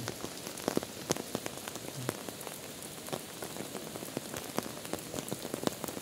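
Steady heavy rain, with many sharp single drops striking close by.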